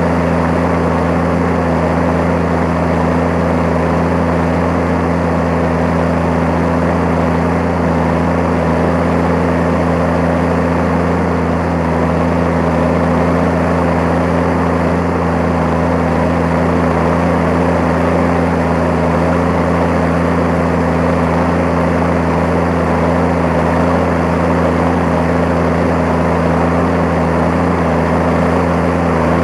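New Holland T7030 tractor's six-cylinder diesel running steadily under load while pulling a plough, heard close beside its exhaust stack.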